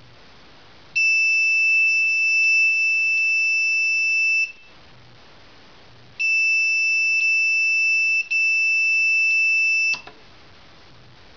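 Piezo buzzer of an Arduino laser tripwire sounding its alarm: a steady high-pitched tone held for about three and a half seconds, then after a short pause again for nearly four seconds, with a brief break partway through and a click as it stops.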